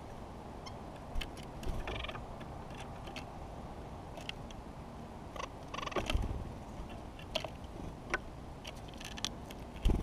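Small birds at a wooden log feeder: scattered taps and clicks of feet and beaks on the wood and seed, with a louder thump about six seconds in as a white-breasted nuthatch lands and another near the end as it leaves, over a steady low rumble.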